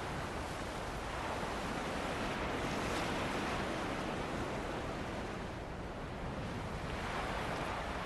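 Ocean surf washing onto a beach with wind blowing: a continuous rushing wash that swells a few seconds in, eases off a little past the middle and builds again near the end.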